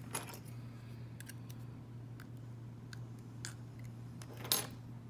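Small metal lock parts clicking and tapping as the disassembled Federal padlock's core and pieces are handled: a few scattered light clicks, the loudest about four and a half seconds in, over a steady low hum.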